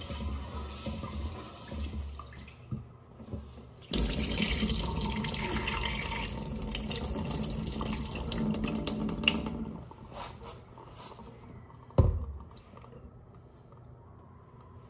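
Water splashing into a stainless steel sink as glutinous rice is rinsed in a steel pot and the rinse water is poured off. It starts suddenly about four seconds in and stops about six seconds later, and a sharp knock follows near the end.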